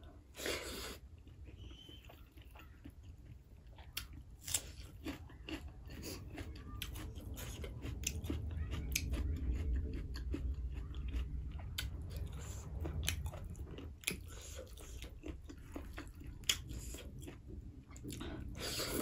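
Close-miked chewing and biting of a hand-fed mouthful of rice and curry (dal bhat), with many sharp mouth clicks. A louder burst comes as a mouthful goes in about half a second in, and again near the end.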